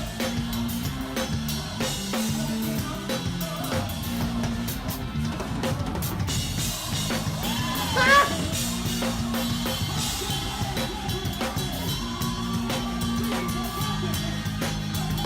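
A live band playing, driven by a busy drum kit of kick, snare and rimshots over held low bass notes. A brief rising vocal cry comes about eight seconds in.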